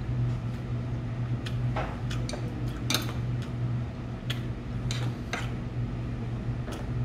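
Metal chopsticks clicking against ceramic dishes and bowls as food is picked up, a series of light separate clinks, over a steady low hum.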